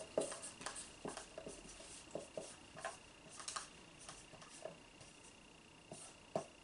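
Faint scratching of a marker writing on a board, in short irregular strokes.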